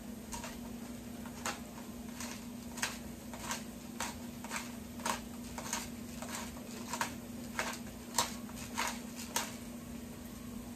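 Hand-twisted pepper grinder cracking peppercorns: a short crunching click with each twist, about one every 0.6 s, stopping near the end.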